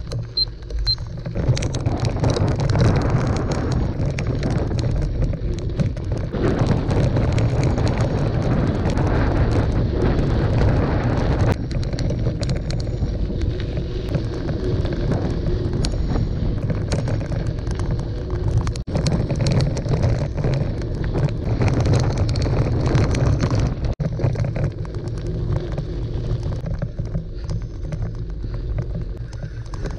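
Wind buffeting an action camera's microphone as a gravel bike is ridden over a dirt road, with gravel crunching under the tyres and frequent small clicks and rattles from the bike over bumps.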